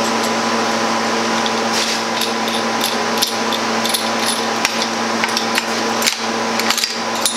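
A chiller hums steadily throughout. From about two seconds in come scattered metallic clicks and clinks as a tri-clamp is worked loose from a stainless pump head.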